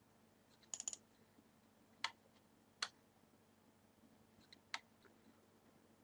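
Computer mouse clicking in a quiet room: a quick double-click about a second in, then three single clicks spread over the next few seconds.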